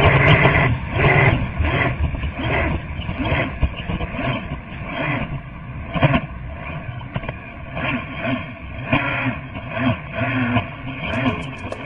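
Racing hydroplane engines running, their pitch rising and falling unsteadily.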